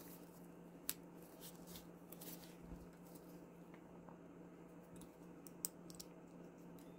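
Near silence with a low steady hum, broken by faint handling noises and two small sharp clicks, about a second in and near the end, from plastic minifigure parts being handled and fitted together.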